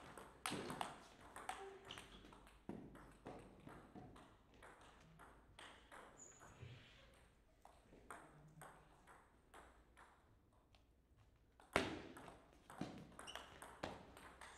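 Table tennis ball clicking off the bats and the table in a rally. It is followed by fainter, scattered ticks, and a new rally begins about twelve seconds in with the sharpest hit of all.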